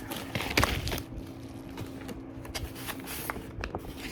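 Album packaging and plastic wrap being handled, with rustling and sharp clicks, loudest in the first second and then sparse ticks. An electric fan hums steadily underneath.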